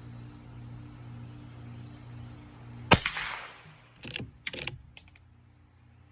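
.22 LR rifle, the Henry, fired once: a single sharp crack with a short ringing tail about three seconds in, followed by two quieter sharp clacks and a couple of faint clicks as the action is worked for the next shot.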